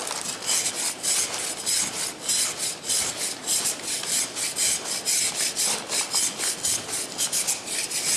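Surform rasp shaving a hard, dry plaster cast in repeated scraping strokes, about two a second.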